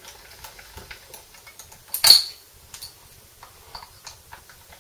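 Light, irregular metallic ticks and clicks as an electric guitar string is wound onto its tuning peg by hand. About two seconds in comes one much louder, sharp metallic click with a brief high ring.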